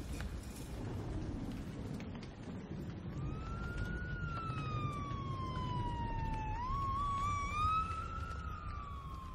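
A siren wailing, its pitch rising and falling slowly, with a brief wavering rise in the latter part, over a steady low rumble.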